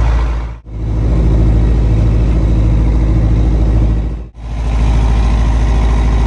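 Fishing boat's inboard diesel engine running steadily with a deep, even throb. The sound drops out abruptly twice, about half a second in and again about four seconds in, then resumes.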